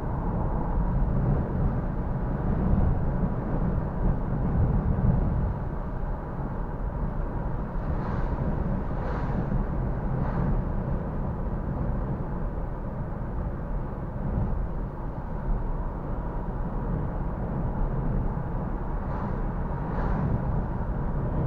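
Strong wind left behind by a typhoon, a steady low rumble that swells in gusts in the first few seconds, with a few faint brief hisses.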